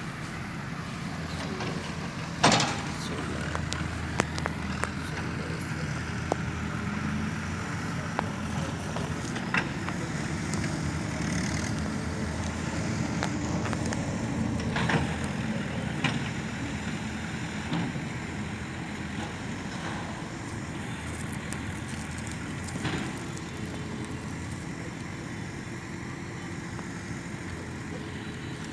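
Excavator's diesel engine running steadily, with scattered sharp knocks and clanks from the machine at work; the loudest comes about two and a half seconds in.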